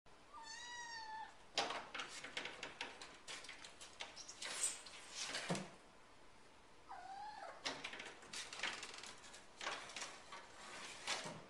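A pet animal cries out twice in drawn-out, pitched calls: one falling near the start and one rising and falling about seven seconds in. Scattered clicks and scuffing sounds come in between.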